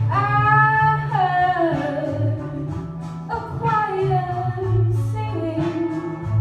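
A woman singing solo over instrumental accompaniment, holding long notes that slide down in pitch, twice.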